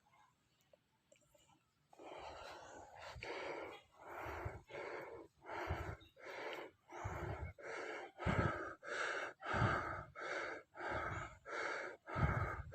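A man breathing hard and fast, forceful puffs in and out a little under two a second, starting about two seconds in after a short silence.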